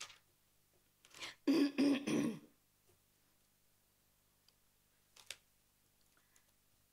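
A woman clears her throat into a lectern microphone: a short sound about a second in, then a louder rough one. Later there is a single light click.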